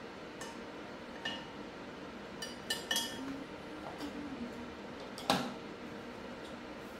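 Small metal pottery tools clinking as they are handled, picked from a tool pot and set down on the wheel's bat: a few light clinks with a brief ringing tone, then one sharper knock about five seconds in. A steady hiss underlies it.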